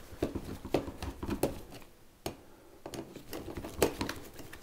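Hand screwdriver turning a screw into the metal cover plate of a dishwasher's electrical junction box, with irregular clicks and scrapes of the tool and plate, the loudest click near the end.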